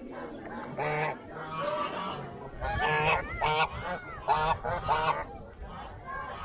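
Geese honking: a string of short repeated honks, with a few higher calls that rise and fall in pitch near the middle.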